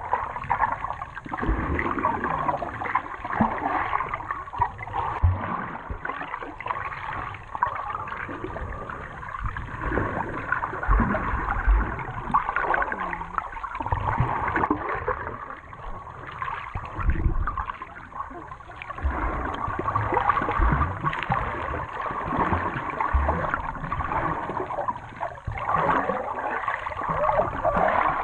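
Sea water sloshing and gurgling around the camera during snorkelling, an uneven wash of water noise with dull knocks now and then.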